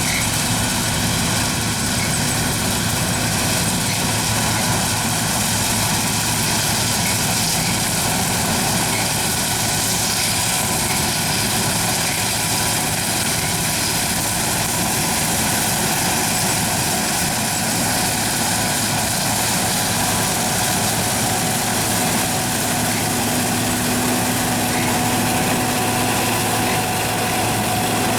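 John Deere 9400 combine running steadily: a constant diesel engine and machinery drone with several steady whining tones. One low hum grows stronger late on.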